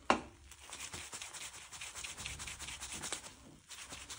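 Nonstick frying pan being shaken back and forth on a gas stove's metal grate: a knock at the start, then rapid scraping strokes with a brief pause near the end. The shaking loosens the cooked omelette so it slides freely in the pan.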